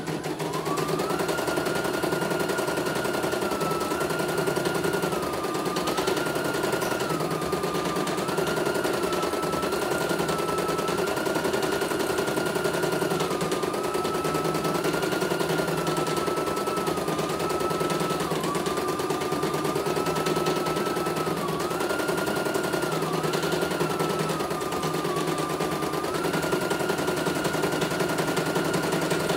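A CNY E900 embroidery machine stitching out a design: a fast, steady rattle of the needle with a motor whine over it. The whine rises as the machine picks up speed about half a second in, then dips briefly and recovers every few seconds.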